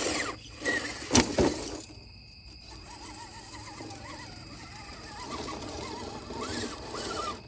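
Laegendary Grando 1:10 RC crawler's electric motor and drivetrain whining, the pitch wavering and shifting with the throttle as the truck climbs and turns on stone steps. A sharp knock comes about a second in.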